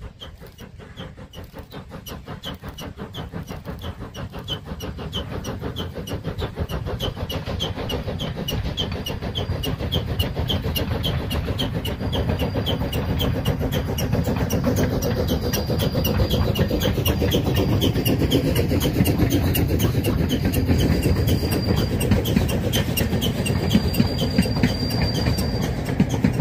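Narrow-gauge steam locomotive working a passenger train, its exhaust beats chuffing in a steady rhythm of about two a second. The chuffing grows louder as the train approaches and passes close by. A faint, thin high tone comes and goes in the second half.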